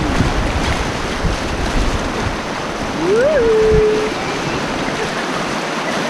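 Whitewater rapids rushing steadily around an inflatable raft, with wind rumbling on the microphone through the first few seconds. About three seconds in, a voice gives one short call that rises and then holds.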